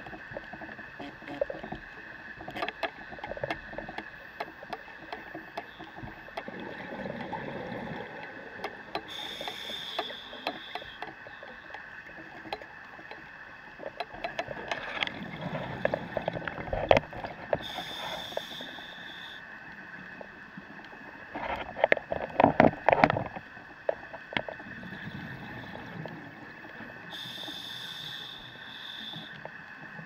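Underwater sound of a scuba diver breathing through a regulator: a hissing breath about every nine seconds, with louder bubbling rumbles in between. Scattered small clicks and a steady high whine run underneath.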